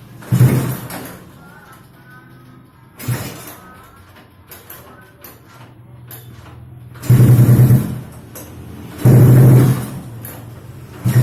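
Motorcycle engine upgraded to 200cc idling steadily, blipped on the throttle: short revs about half a second and three seconds in, then two longer, louder revs about seven and nine seconds in.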